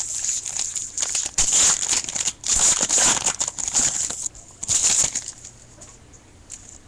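Foil wrapper of a baseball card pack crinkling as it is handled and opened, in a run of irregular rustling bursts that die down about five seconds in.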